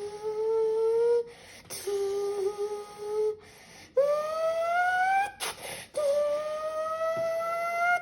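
A child imitating a car engine with his voice: four hummed tones with breaths between them. The first two are held nearly level, and the last two climb steadily in pitch, like an engine revving up through the gears.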